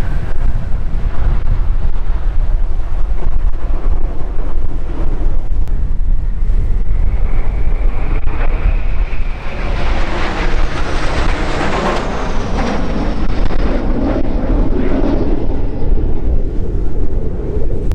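Two Alpha Jets' Larzac turbofan engines heard flying past, the jet noise swelling in the middle with a high whine that falls in pitch as they go by. Wind rumbles on the microphone throughout.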